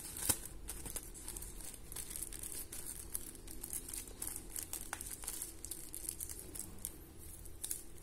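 Clear plastic wrapping crinkling as a small packet in a plastic bag is handled. Scattered light crackles, with one sharper click about a third of a second in.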